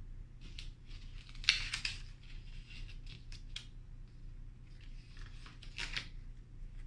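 Paper cut-outs rustling and scraping as they are handled and pressed onto easel paper, in several short bursts, the loudest about a second and a half in and another near the end.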